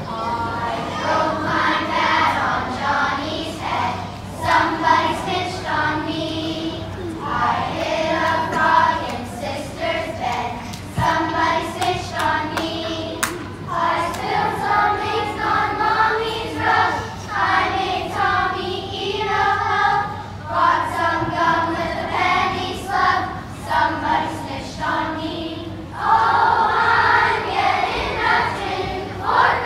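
A large children's choir singing, phrase after phrase with short breaks between.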